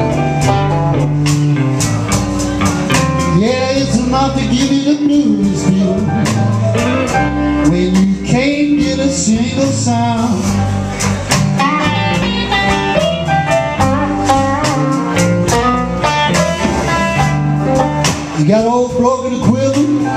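Live blues band playing, with guitar lines bending in pitch over bass, drums and piano.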